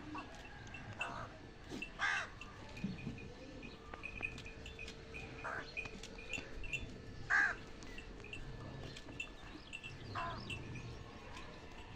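Crows cawing: about five short, harsh single calls a couple of seconds apart, over continual high chirping of small birds.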